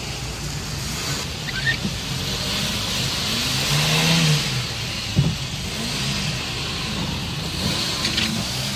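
Heard from inside a car driving through a flooded street in heavy rain: a steady hiss of rain on the windshield and water spraying from the tyres. The engine runs underneath, its note rising and falling, with a single knock about five seconds in.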